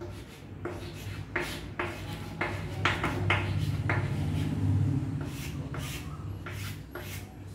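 Writing by hand: a run of short scratching strokes, two to three a second, with a brief pause midway. A steady low hum lies underneath.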